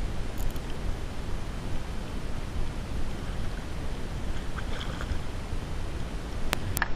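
Wind rumbling on the microphone over water noise, with a few short sharp clicks near the end.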